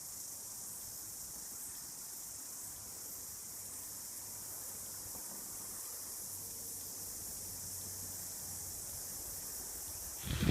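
Steady high-pitched chorus of insects, even and unbroken, with a much louder rushing sound breaking in just before the end.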